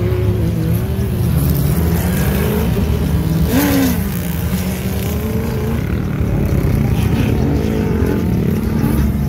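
Engines of off-road dune cars running, their pitch wavering as they rev. About three and a half seconds in, one engine briefly rises and falls in pitch.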